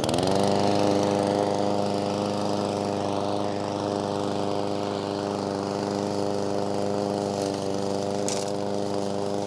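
PowerSmart 144cc OHV single-cylinder engine on a 21-inch push lawn mower, just started, rising to speed in the first half second and then running steady at governed full speed.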